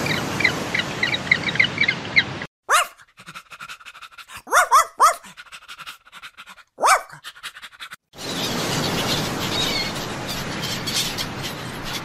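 A Pomeranian puppy yapping in short, sharply rising yelps, three in quick succession in the middle and single ones before and after. Before the yelps there is a steady noise with rapid high bird chirps, and after them a steady hiss with faint clicks.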